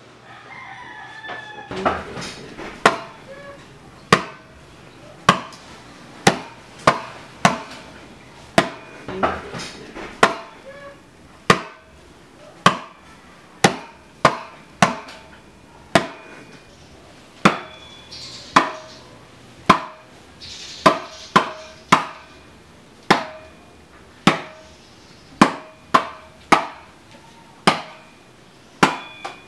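A small hand drum struck sharply, about once a second and sometimes in quick pairs, each strike ringing briefly, keeping time for a dance.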